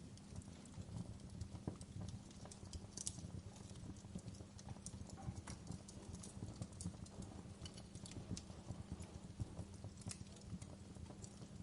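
Campfire burning, a steady low rumble of the flames with irregular crackles and pops from the wood throughout.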